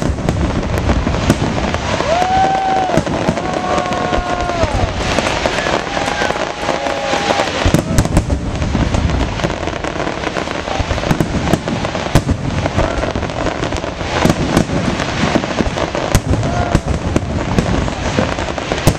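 Fireworks display: a dense, continuous run of pops and sharp bangs from aerial shells and fountain fireworks.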